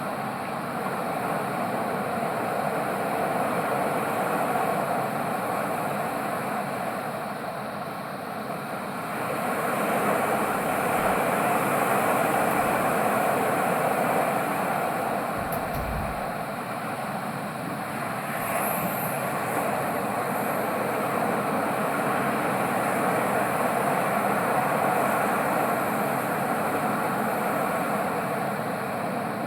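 Ocean surf: a continuous rush of waves that swells and eases slowly every several seconds.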